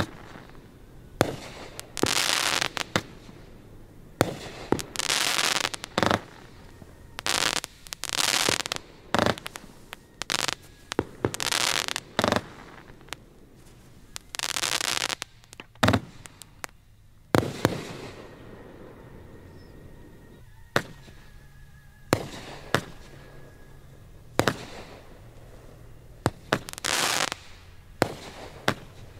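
Fireworks going off in a barrage: sharp bangs mixed with bursts of dense hiss about a second long. They thin to scattered bangs for several seconds past the middle, then pick up again near the end.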